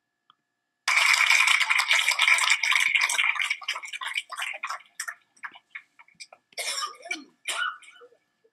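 Audience applauding, starting abruptly and loud, then thinning out into scattered individual claps.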